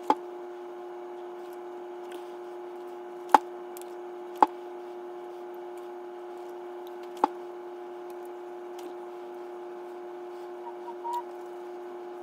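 A steady, even hum with four sharp clicks: one right at the start, two about three and four and a half seconds in, and one about seven seconds in.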